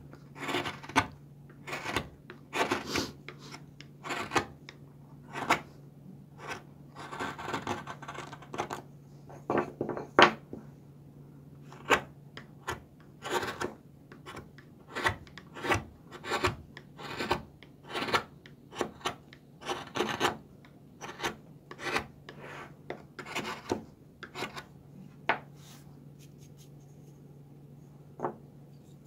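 Carving chisel pared by hand into the end of a small wooden block: an irregular string of short, crisp cutting strokes, some drawn out into scrapes, as the base is shaved toward the centre so it will sit flat. A steady low hum runs underneath.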